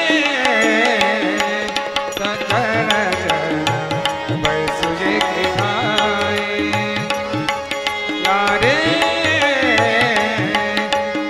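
Marathi abhang devotional music: tabla keeping the rhythm under harmonium and violin, with gliding melodic lines between sung phrases of the refrain.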